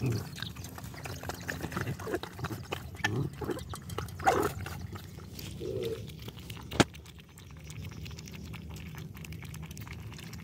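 Several dogs eating wet food from a shared pan, with slurping, chewing and scattered clicks. After a single sharp knock about two-thirds of the way through, a litter of puppies laps milk from a bowl: a steady run of small wet licking sounds.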